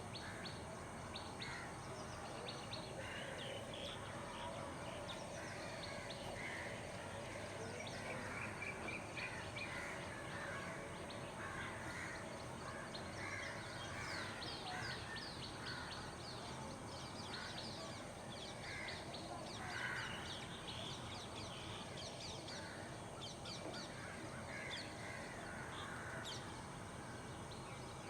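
Crows cawing again and again, with smaller birds chirping in quick high runs, over steady background noise of an urban morning.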